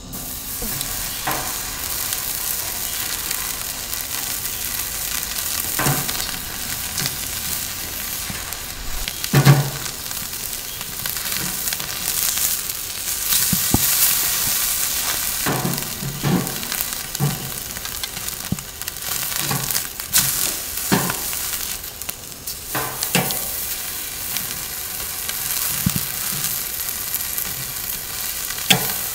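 Beef steaks sizzling on the grill grate of a portable smokeless fire stove, a steady frying hiss. Short knocks on the grate come now and then, the loudest about nine seconds in.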